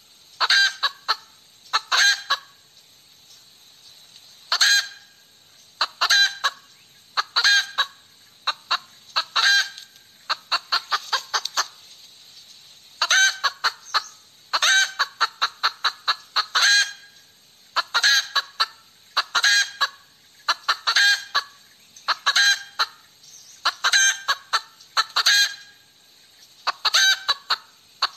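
Hen cackling over and over: quick runs of sharp clucks, with a new run starting every second or two.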